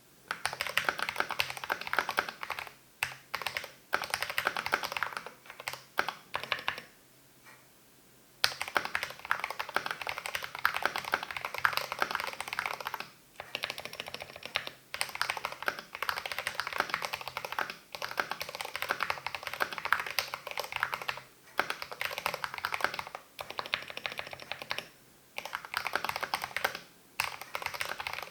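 Typing on a GMMK Pro mechanical keyboard with lubed Cherry MX Speed Silver linear switches and MT3 keycaps: fast, dense runs of keystrokes broken by short pauses, with a longer gap about seven seconds in.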